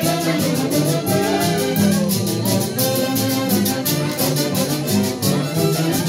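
Live music from an Andean-style dance orchestra: horns play the melody over a steady, evenly pulsing beat.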